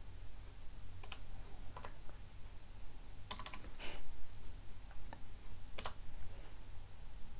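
Keystrokes on a computer keyboard: single key presses spaced about a second apart, with a quick run of several keys about three to four seconds in.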